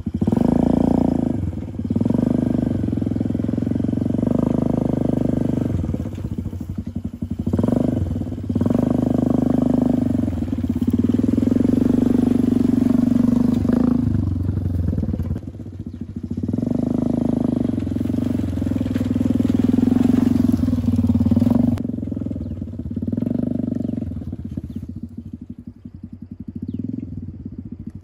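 Homemade buggy's 110cc petrol engine running under load over rough dirt, revving up and easing off several times. It dies down near the end.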